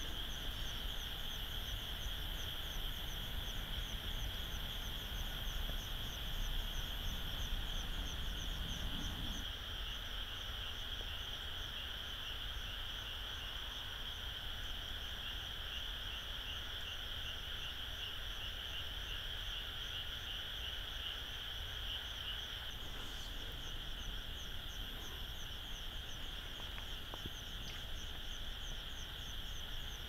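Night chorus of calling insects and frogs: a continuous high trill with a faster pulsing chirp above it, over a low rumble that thins about a third of the way through.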